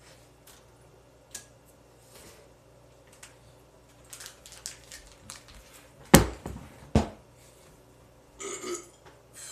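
Kitchen handling noise: light knocks and clicks of items being moved on a counter, with a loud low thump about six seconds in, a second thump a second later, and a brief scraping rustle near the end.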